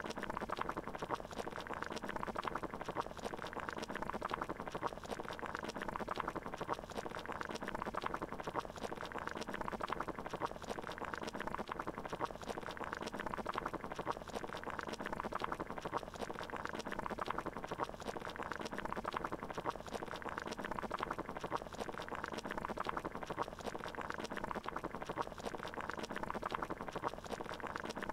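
Water boiling, a steady dense bubbling.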